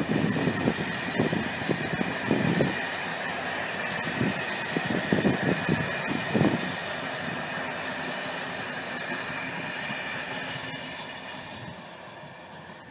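Passenger train coaches rolling past on the rails: a rumbling clatter of wheels with a steady high ringing tone over it, fading away near the end as the last coaches pass.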